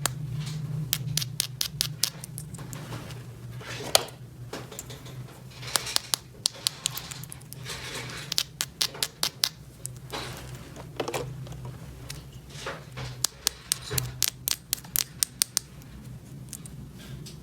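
Small plastic toy pieces being handled and set down: irregular clicks and taps, some in quick runs, with light scraping between them, over a steady low hum.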